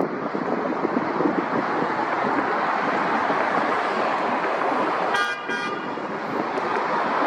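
Steady rushing noise of wind and traffic, with a vehicle horn giving a short double toot about five seconds in.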